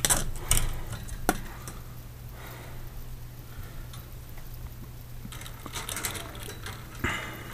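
Light clicks, taps and rustling from handling fluorescent ballast wires and push-in wire connectors, with a cluster of small clicks about five to six seconds in, over a steady low hum.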